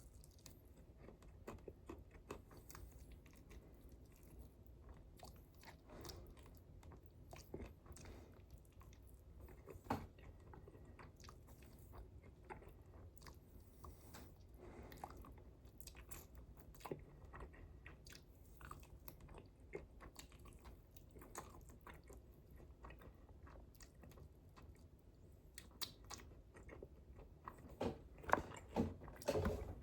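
A person chewing food close to the microphone, with soft mouth clicks and bites scattered throughout and a louder run of clicks near the end.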